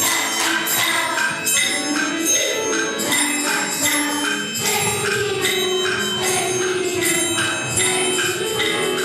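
Music with bell-like chimes, a quick rhythm of short notes and a long held note through the middle.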